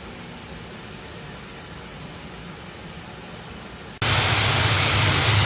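Faint steady hiss, then about four seconds in a pressure washer cuts in abruptly: a loud spraying hiss over a low steady hum.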